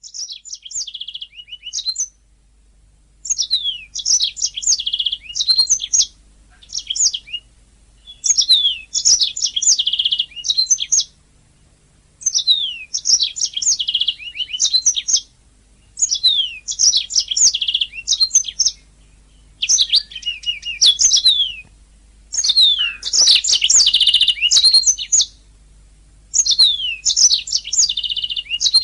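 Domestic canary singing: about eight phrases of two to three seconds each, made of rapid trills and quick whistled sweeps, separated by short pauses.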